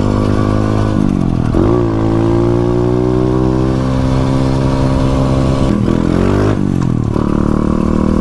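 Motorcycle engine running as it is ridden: its pitch rises as it accelerates, holds, drops back about six seconds in, then climbs again.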